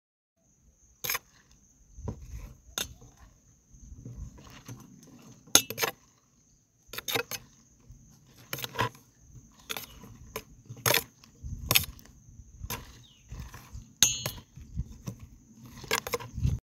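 Metal spoon clinking and scraping against a kadhai as paneer cubes are stirred in hot oil, with irregular sharp clinks about once a second.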